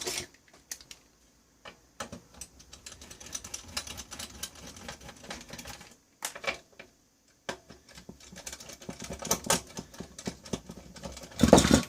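Screwdriver and small metal screws clicking and ticking irregularly while a piece of electronic test equipment is dismantled, pausing briefly about six seconds in, with a louder knock near the end.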